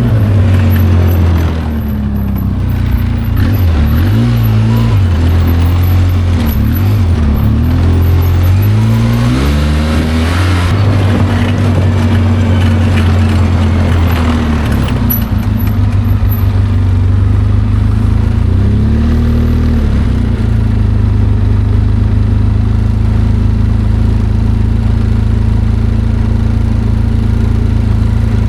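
ATV engine running under way, its pitch rising and falling repeatedly as the throttle and speed change, then settling to a steady drone in the second half.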